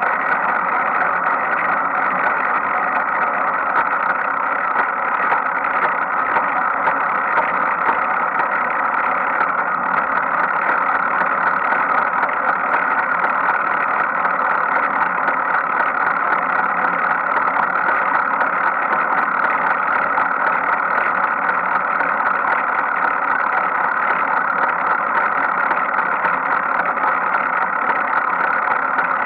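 Bicycle rear wheel and drivetrain running with a steady noise, recorded to catch a knocking from around the rear sprocket.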